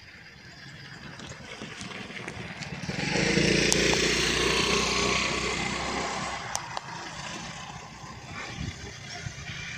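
A vehicle engine swells sharply about three seconds in, with a low rumble and a broad hiss, then slowly fades.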